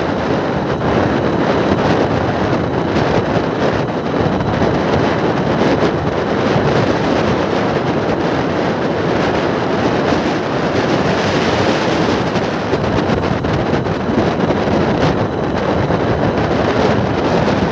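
Steady, loud wind rushing over the microphone of a fast-moving vehicle, mixed with road noise.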